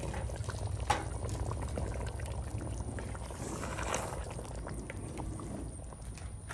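Thick tomato sauce piquante bubbling at a simmer in a cast-iron Dutch oven, over a low steady rumble. About four seconds in, a wooden spoon stirs through the sauce.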